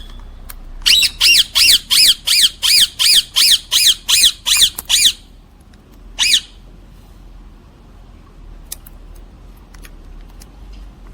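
A bird calling in a rapid series of about fourteen calls, roughly three a second, each rising and falling in pitch, stopping about five seconds in; one more call follows a second later.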